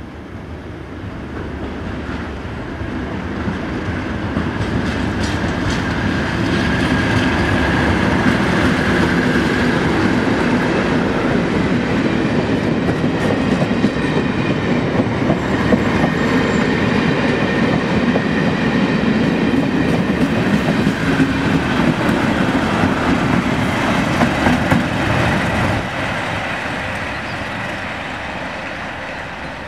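A Network Rail test train topped and tailed by two Class 37 diesel locomotives passing: the leading locomotive's English Electric diesel engine builds steadily as it approaches, then the coaches' wheels clatter over the rail joints. The sound drops off suddenly near the end and fades as the rear Class 37 moves away.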